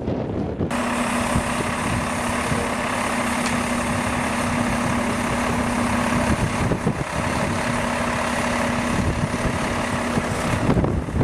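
An engine running steadily with a constant hum, which cuts in abruptly just after the start and stops abruptly near the end.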